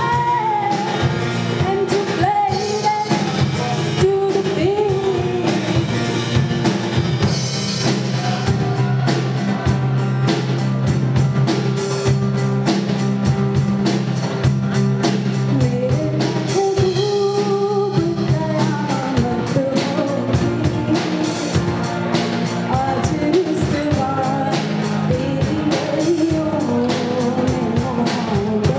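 Live band: a woman singing a melody over strummed acoustic guitars and a Sonor drum kit keeping a steady beat.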